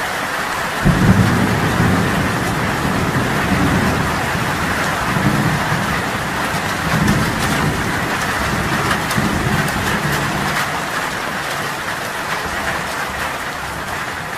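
Heavy rain pouring steadily, with a low rolling rumble of thunder that sets in about a second in and fades out toward the end.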